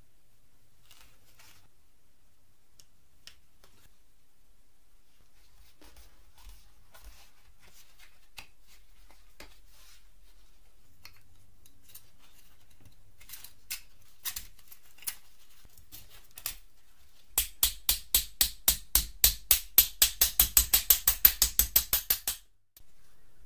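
A small hammer tapping steel E-I laminations into a transformer's coil: a fast, even run of sharp metallic taps, about six a second, for the last five seconds or so. Before that come faint clicks and clinks as the thin plates are slid into place.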